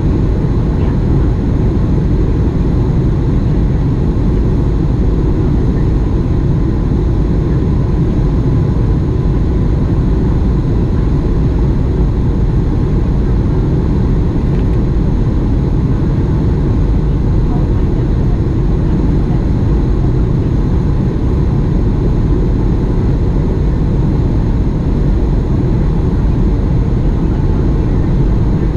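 Steady cabin noise inside a Boeing 737 MAX in flight: an even low rumble of rushing air and its CFM LEAP-1B engines, with a faint steady hum above it.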